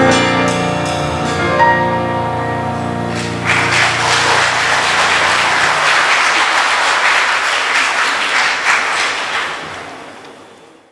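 The song's final chord, from the choir's ensemble of strings, piano and bass guitar, is held and rings out; about three and a half seconds in, audience applause starts and carries on, fading out near the end.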